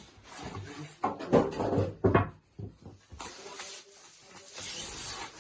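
Bumps and scraping of a heavy cardboard-boxed dishwasher being handled, with a few loud knocks in the first half and rustling of cardboard after.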